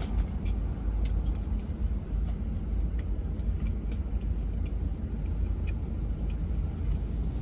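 Car engine idling, a steady low rumble heard inside the cabin, with faint scattered clicks of chewing.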